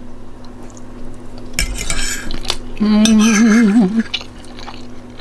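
A fork scraping and clinking against a plate of food, then about a second of a wavering, hummed "mmm" from the person eating.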